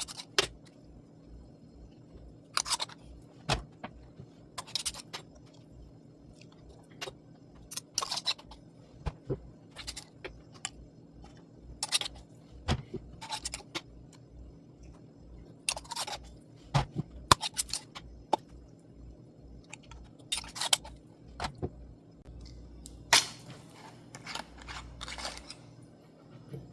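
Glass jars of fermenting homemade soda being handled and their lids worked open to burp them: irregular sharp clicks, taps and scrapes of glass and lid, over a steady low hum.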